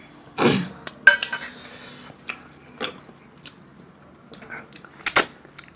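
Scattered clinks and scrapes of fingers working rice on stainless-steel plates while eating by hand, with a louder knock about five seconds in.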